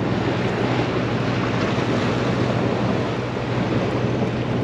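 Sea surf and wind buffeting the microphone: a steady rushing noise with no distinct events.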